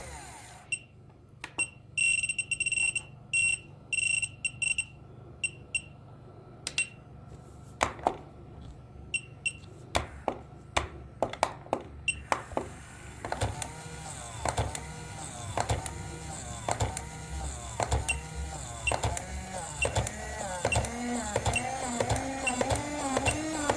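Electric toy alarm clock sounding: a high electronic beep pulsing on and off for about six seconds, then scattered sharp clicks, then a regular knocking about twice a second with a warbling tone. A hum climbs steadily in pitch over the last few seconds.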